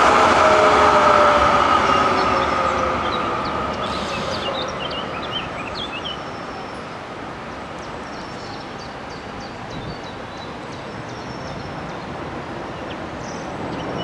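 Munich low-floor electric tram running past and away, its motor whine gliding down in pitch and fading over the first few seconds into street noise with birds chirping. The rumble swells again near the end as a second tram approaches.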